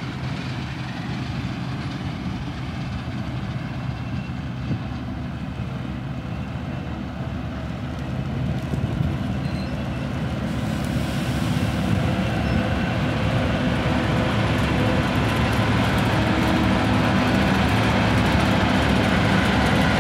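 Diesel engine of a Deutz-Fahr farm machine running steadily, growing gradually louder from about halfway through.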